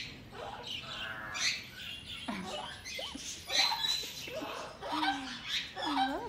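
Small parrots chirping and squawking in quick, short calls scattered throughout, with a few low sliding tones mixed in.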